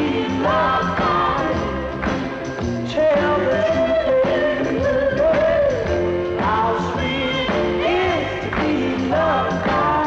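A mid-1960s Motown pop-soul song: a lead singer over a band, with the voice sliding between held notes.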